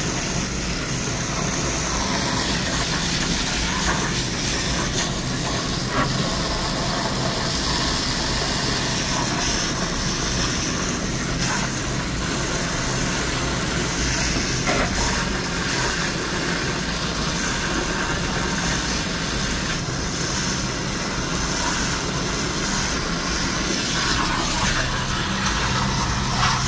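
Steady hiss and splash of a hose jet spraying hot water onto a produce case's evaporator coil and drain pan, flushing out the slime that plugs the drain.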